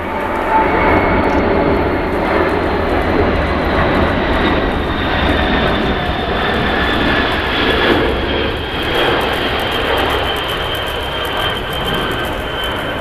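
Four jet engines of a Boeing 747 Shuttle Carrier Aircraft running as it flies low past on its landing approach: a steady roar with a high whine that slowly falls in pitch as the plane goes by.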